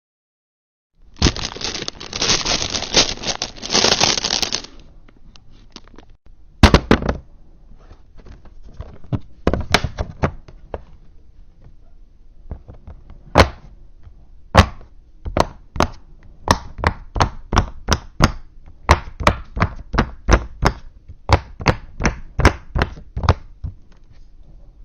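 Fidget toy being clicked and clacked by hand: a dense rattle for a few seconds near the start, then sharp separate clicks that settle into about two a second in the second half.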